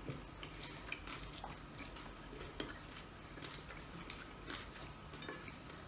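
Quiet eating by hand: fingers picking at and working rice and fried fish on a plate, giving scattered faint small clicks and soft rustles.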